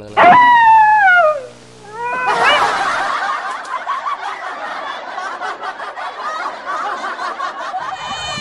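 A loud pitched cry that slides steadily down in pitch over about a second and a half, then several seconds of rapid, overlapping high-pitched chattering that sounds like laughter.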